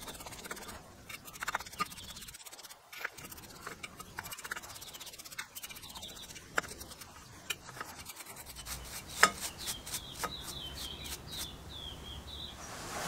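A bristle brush scrubbing a small black knurled cap in a metal can of liquid: irregular scratching and rubbing strokes with light clicks and taps. Near the end comes a quick run of sharp ticks, about three a second.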